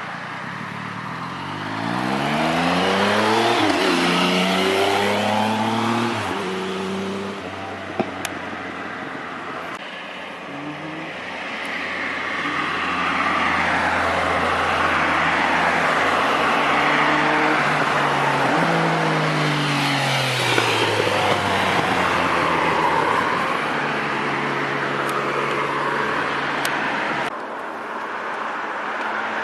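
Triumph Speed Triple 1050's inline three-cylinder engine through an Arrow 3-into-1 exhaust, revving up and easing off several times: a steep climb in pitch in the first few seconds, a second climb around a third of the way in, and a falling note past the middle.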